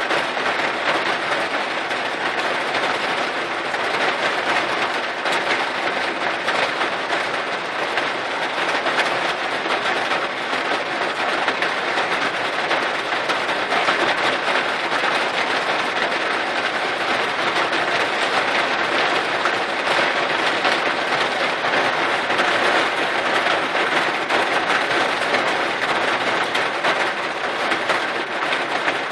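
Heavy downpour: dense, steady rain beating on the glass and body of a vehicle, heard from inside it.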